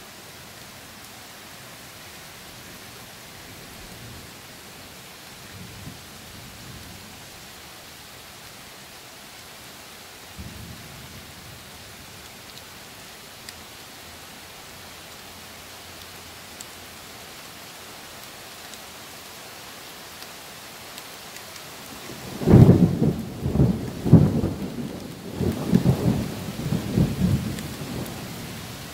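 Steady rain hissing, with faint low rumbles of distant thunder. About two-thirds of the way through, a loud peal of thunder breaks suddenly and rolls in several surges for about five seconds before dying away.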